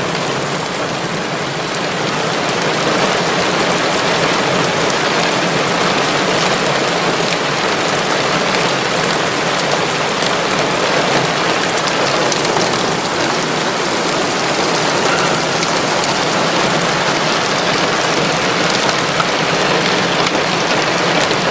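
Rain beating steadily on a vehicle's roof and windows, heard from inside the cab as a dense hiss of many small hits.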